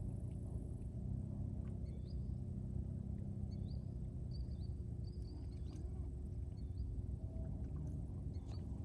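A small bird chirping: a series of short, high, hooked calls over a steady low rumble.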